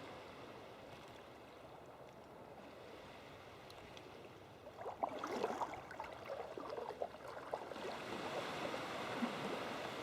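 Seawater gurgling and splashing. It is quiet at first and grows louder and choppier from about five seconds in.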